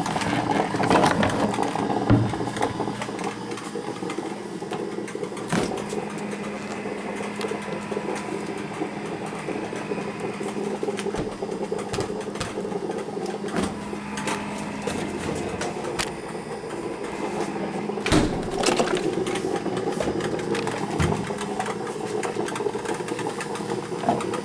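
Black & Decker drip coffee maker brewing: a steady hum with hissing noise above it, and scattered clicks and knocks.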